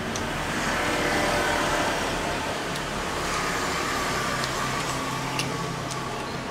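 A steady engine-like hum underneath, with a few sharp clicks of a metal spoon against a stainless-steel tray as noodles are scooped.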